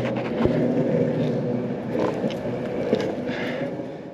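Longboard wheels rolling over a concrete parking-garage deck: a steady rumble with a few clicks as the wheels cross seams and grit.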